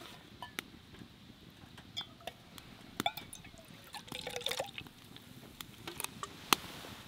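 Beer poured from a can into a titanium mug, the liquid running and splashing loudest about four seconds in, with scattered small clicks and taps of can and cup.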